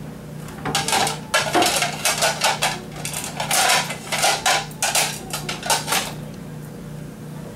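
Dishes clattering: plates and pots being handled, a busy run of knocks and clinks from about a second in until about six seconds in.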